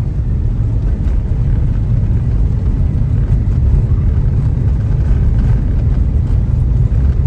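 Steady low rumble of a moving car, its road and engine noise heard from inside the car.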